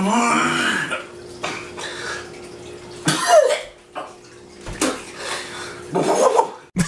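A man gagging, coughing and sputtering through a mouthful of foaming baking soda and vinegar, in several separate outbursts. One of them is a short bark-like yelp.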